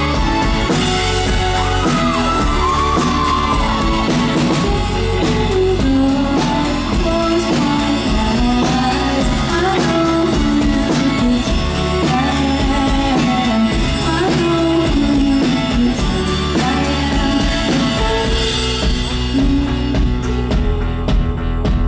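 Live rock band: a woman singing over guitar, bass and drum kit, recorded from the room at a loud concert. The highest treble falls away about nineteen seconds in.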